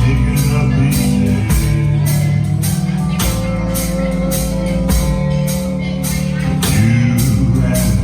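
A band playing a rock song with a steady beat of about two strokes a second over sustained bass and guitar notes; a single note is held for a few seconds from about three seconds in.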